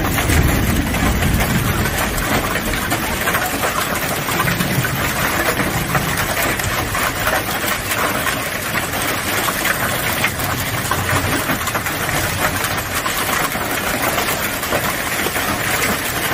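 Heavy hail pelting parked cars and the ground: a dense, steady clatter of many small ice impacts, with a low rumble that comes and goes, strongest near the start.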